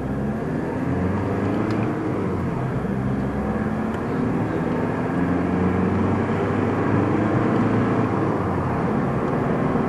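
Car engine and road noise heard inside the cabin as the car drives off, the engine note climbing and shifting several times.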